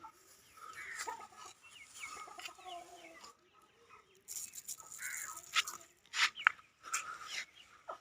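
Aseel chickens clucking softly while being fed millet, with several sharp clicks in the second half.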